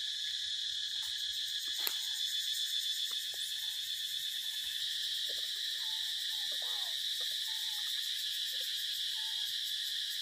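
Steady, shrill drone of a forest insect chorus, with a few faint short calls around the middle and again near the end.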